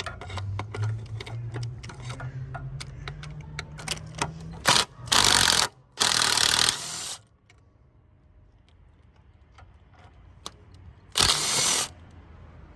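Ratchet clicking as the rocker cover bolts are undone, over a low hum. Three loud, noisy bursts of about a second each break in partway through and near the end.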